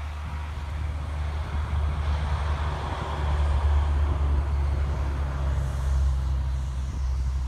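Road traffic passing by: a vehicle's noise swells to a peak about three seconds in and then fades, over a steady low rumble.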